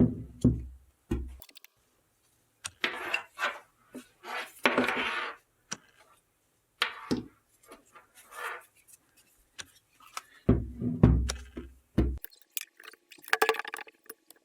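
Handling sounds from cleaning a diesel fuel injection pump on a bench: scattered knocks and clinks, several short hissing bursts, and heavy low thumps near the start and again about ten seconds in.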